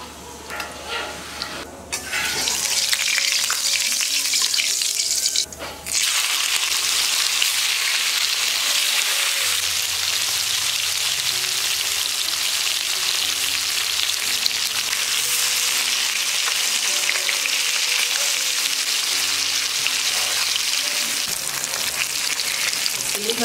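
Food sizzling loudly in hot oil in a pan while it is stirred. The sizzle starts about two seconds in and then holds steady, with a brief dip a few seconds later.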